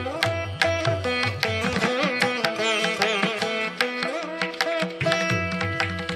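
Background music in an Indian classical style: a plucked string instrument plays a melody with sliding, bent notes over steady hand-drum strokes.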